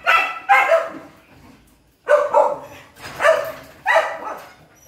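Domestic dogs barking territorially at a palm civet trapped above them: short loud barks in quick runs of two or three, with brief pauses between the runs.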